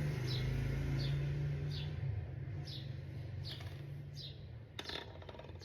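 A small bird chirping over and over, short falling chirps less than a second apart. A steady low hum fades out about two seconds in, and a few sharp clicks come near the end.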